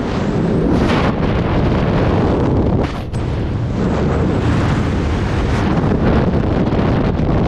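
Loud, steady rush of wind blasting over a skydiver's camera microphone as he falls through the air, with brief stronger gusts about one second and three seconds in.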